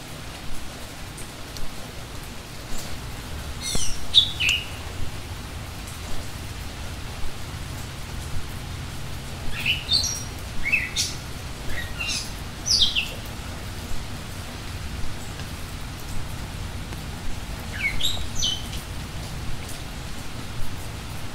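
Small birds chirping in three bouts of short, quick falling calls, over a steady background hiss with faint small clicks.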